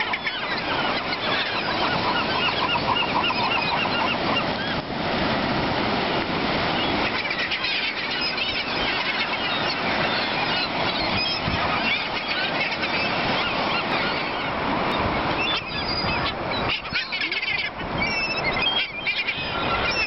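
A large flock of gulls calling all at once as they crowd in for food: a dense, continuous clamour of overlapping calls.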